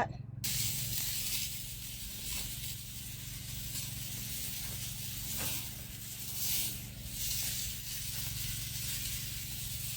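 Water spraying from a hose onto rice seedling beds: a steady hiss that starts about half a second in, with small swells, over a low steady hum.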